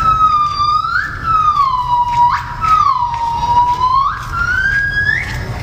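A gibbon calling in long, pure whooping notes that glide down and swoop back up, with one sharp upward sweep about halfway through. The call ends just before the close.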